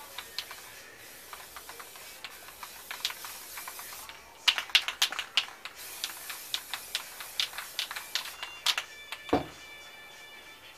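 Aerosol spray paint can hissing in long spurts, over many sharp clicks and taps. A short falling sweep comes near the end.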